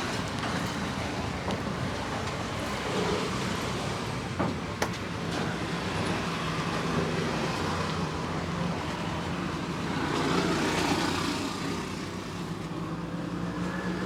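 Road traffic: vehicle engines running steadily, with one passing louder around ten seconds in. Two sharp clicks come close together about four and a half seconds in.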